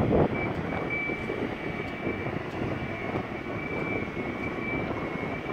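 Steady running noise of a 560-ton mobile boat hoist, with a faint high thin whine that comes and goes.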